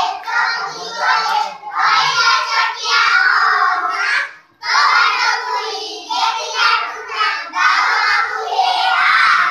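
A group of young children singing a rhyme in unison, in phrases of a few seconds with short breaks between them.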